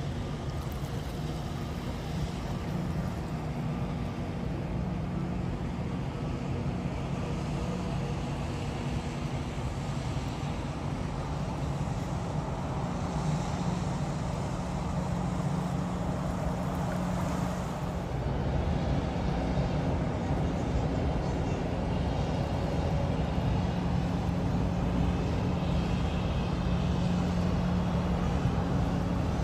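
Steady low engine drone with a constant hum, getting a little louder about two-thirds of the way through.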